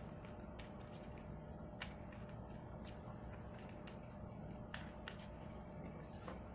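Tarot deck being shuffled and handled in the hands: soft card rustles and taps, with two sharper clicks, one about two seconds in and one just before five seconds, over a faint steady hum.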